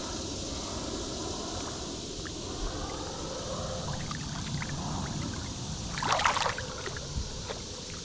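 Creek water running steadily, with a brief louder splashing rush about six seconds in.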